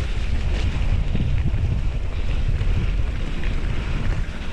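Wind rumbling on the microphone of a riding mountain bike's camera, with the noise of the bike rolling over a grassy dirt track.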